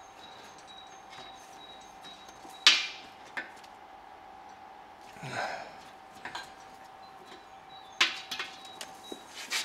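Pipe fittings being handled and set down: a few sharp clicks and knocks, the loudest about two and a half seconds in and more near the end, with a brief scrape in the middle.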